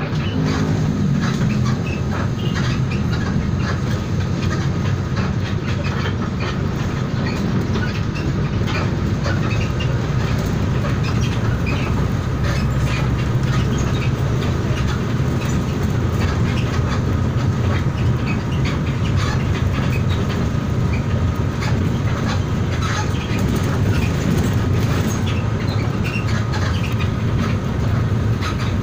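Inside a moving passenger train: a steady low rumble from the running gear, with wheels clacking and rattling over the rail joints.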